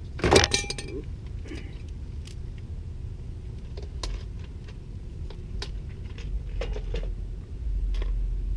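Metal hand tools and parts clinking and rattling: one sharp metallic clank with brief ringing about a quarter second in, then scattered small clicks and knocks over a steady low rumble.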